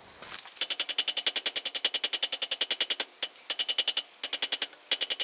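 Very rapid metal-on-metal striking with a high ring, about eight blows a second, in four runs broken by short pauses: hammering on steel at the anvil.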